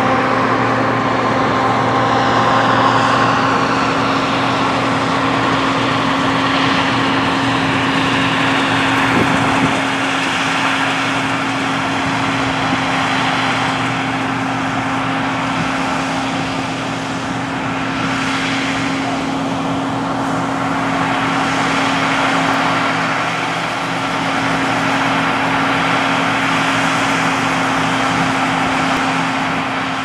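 A John Deere C670i combine and a Valtra N163 tractor running steadily at work in the field: a constant engine drone with one steady hum, under a rushing machinery noise.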